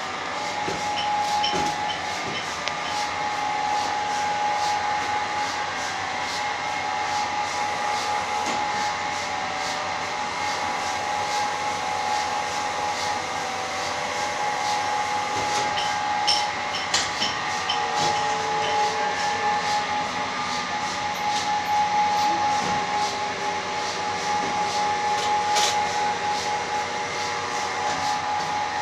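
Hydraulic vertical insert moulding machine running steadily, its motor and pump giving a constant hum with a steady whine over it. Small clicks and knocks, a few sharper ones around the middle and near the end, come from the parts and mould being handled.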